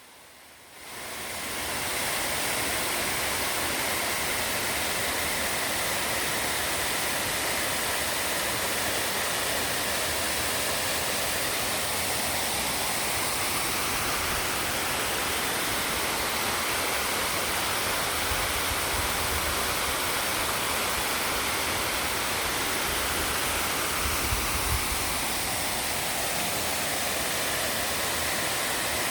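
Large waterfall heard from its base: a steady, dense rush of falling water crashing onto rock, fading in over the first second or two and then holding even.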